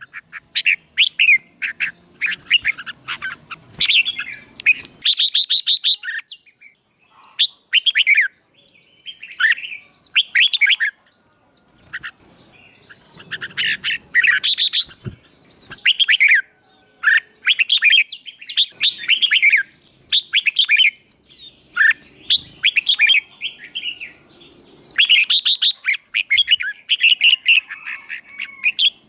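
Caged songbird singing in loud, fast bouts of chirps and trills with short pauses between them: a wild-caught bird being worked up to sing for contests.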